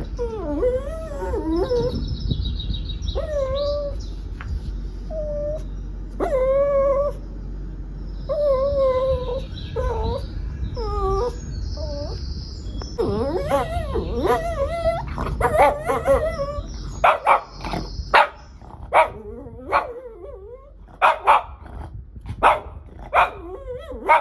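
Shih Tzu whining and yipping in wavering, rising and falling cries, then giving a run of short sharp barks about a second apart.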